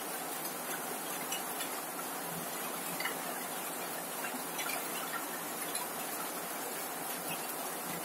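Rain falling steadily on a corrugated zinc roof: a dense, even hiss with scattered small ticks of individual drops.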